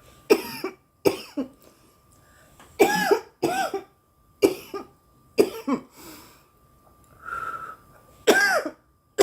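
A woman's coughing fit: about seven harsh coughs in quick bursts, several doubled and some with her voice in them, brought on by inhaling cannabis smoke.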